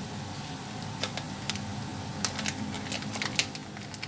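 Small hard parts being handled: light, irregular clicks and taps, the loudest near the end, over a steady low hum.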